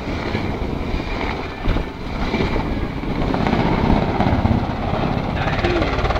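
Black Hawk military helicopter in flight, its rotor and engines running steadily as it manoeuvres, getting a little louder in the second half.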